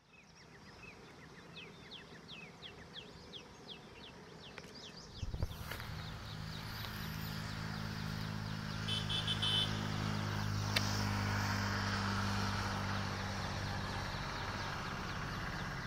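Outdoor field sound: birds chirping in quick, repeated falling notes. About five seconds in, a steady low hum and a rushing, wind-like noise come in and cover them.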